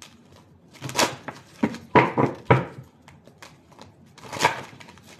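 A deck of tarot cards being shuffled by hand, in several short bursts with quieter gaps between them.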